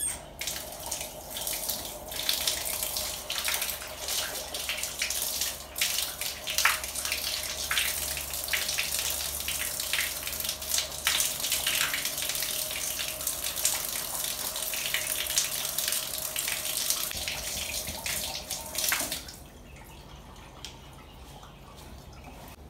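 Water running from a tap and splashing, with a faint steady whine under it. It stops suddenly about 19 seconds in.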